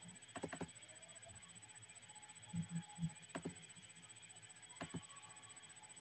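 Faint clicks and soft knocks from handling a computer, most likely mouse clicks while switching the shared screen: a quick cluster of clicks about half a second in, three low knocks around two and a half to three seconds, and single clicks later, over quiet room noise with a thin steady high whine.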